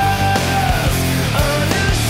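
Rock music with a steady beat and sustained notes.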